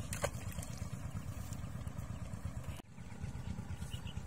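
A small engine idling steadily, a low rapid pulsing that drops out for an instant nearly three seconds in.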